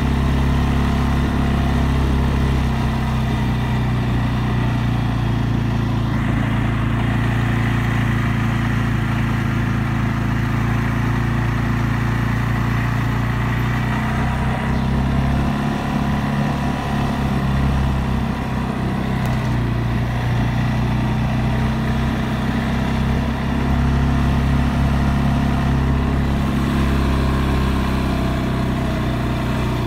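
CFMOTO CForce 600 ATV's single-cylinder, liquid-cooled engine running steadily while riding at a moderate pace, its note shifting a little now and then as the throttle changes.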